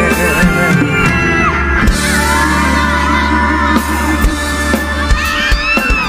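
Live band playing an upbeat mor lam song, with steady bass and drums and singing gliding above.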